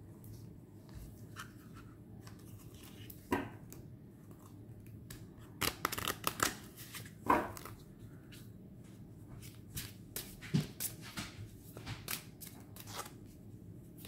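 A deck of oracle cards being handled and shuffled by hand: scattered soft clicks and flicks of card stock, busiest about six seconds in and again from about ten to thirteen seconds, over a faint steady room hum.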